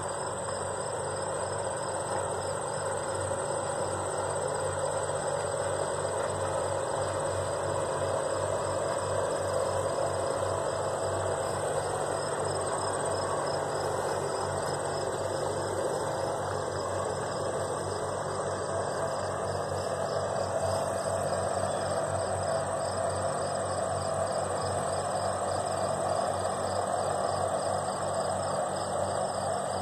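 Insects calling in a steady chorus, one high trill held steadily and another pulsing rapidly. Under them runs a low, steady drone of boat engines on the water.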